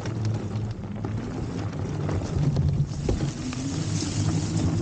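Low rumble of an e-bike rolling over rough, dry grass, with wind buffeting the microphone and scattered small clicks and crackles.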